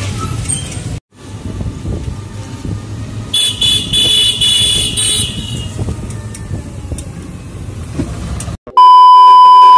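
Riding in a moving e-rickshaw (toto): steady road and rattle noise, with a high-pitched vehicle horn sounding for about two seconds. Near the end a loud, steady electronic beep cuts in for about a second.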